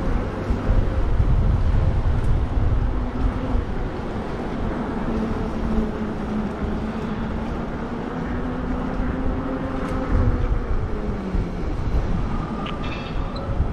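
Wind rushing over the microphone and tyre noise from a moving Lectric XP e-bike, with a low hum running underneath that slides down in pitch about eleven seconds in.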